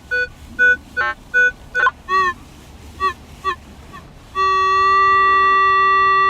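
Metal detector signalling over a buried target. First comes a string of short two-pitch beeps, about two or three a second, then a few shorter beeps that bend in pitch, then one long steady low tone held for the last two seconds. It is a clean response, which the detectorist reads as coin-like and better than a bent nail.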